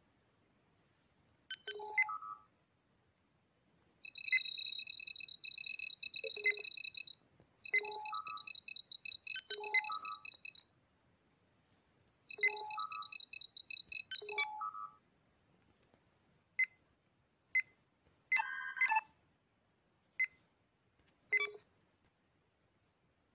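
Star Trek LCARS-style computer interface sound effects from phone apps: short chirps and rising three-note beeps, and three bursts of rapid, high, pulsing trills, each two to three seconds long. Scattered single beeps and a quick stepped run of tones follow in the last few seconds.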